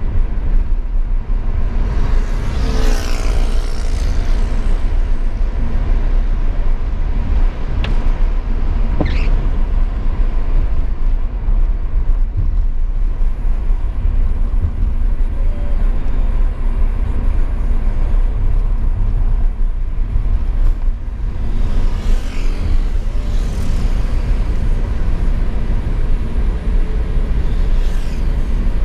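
Car driving along a city avenue: steady low road and engine rumble. Other vehicles swell past a few times, including a truck alongside near the end.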